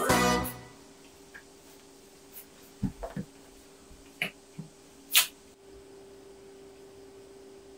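A children's song ends, then a quiet room with a faint steady hum. Several short, soft taps and knocks come scattered between about three and five seconds in, the sharpest near five seconds.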